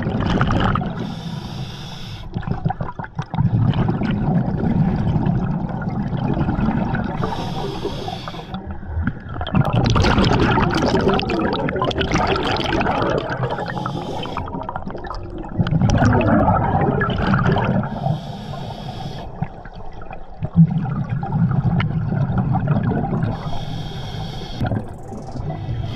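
Scuba diver breathing through a regulator underwater: a short hiss of inhalation about every five seconds, alternating with longer stretches of exhaled bubbles gurgling past the mask.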